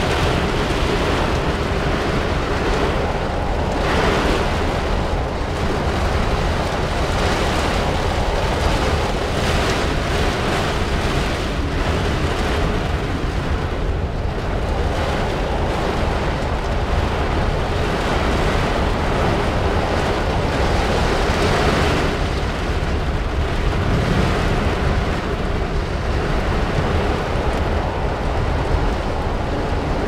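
Violent storm wind blowing and buffeting the microphone with a heavy low rumble, gusts swelling and easing.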